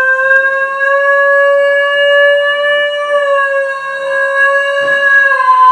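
Basenji dog howling: one long call held at nearly one pitch, rising a little in the middle and dipping slightly near the end. It is the breed's yodel-like howl in place of a bark.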